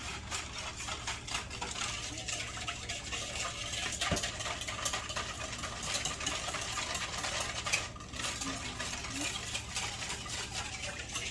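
Wire whisk beating ham glaze mix into water in a bowl: a steady, rapid run of scraping clicks against the bowl, breaking up the glaze powder.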